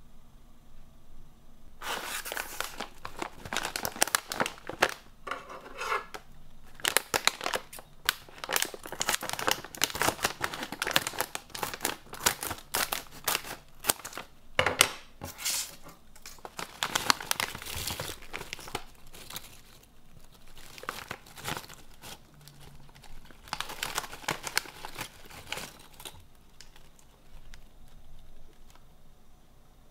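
Plastic snack packet crinkling and tearing as it is handled and opened, in bursts of dense crackle with short pauses, stopping a few seconds before the end.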